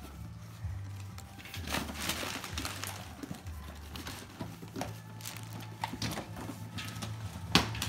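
A cardboard box being opened and handled: irregular rustling and scraping of cardboard, with paper crinkling and a few clicks, and a sharp knock near the end.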